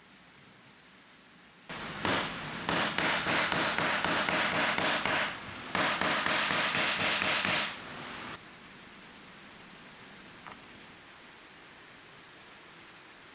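Workshop work noise: a hissing, scraping sound laced with rapid clicks, about four or five a second, in two stretches of a few seconds each, starting about two seconds in and stopping about eight seconds in.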